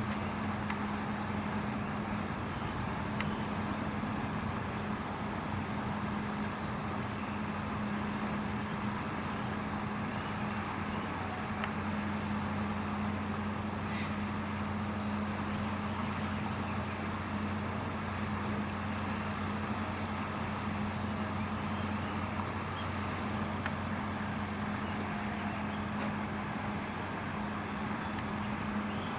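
Steady outdoor background noise: an even hiss and rumble with a constant low hum underneath and a few faint ticks.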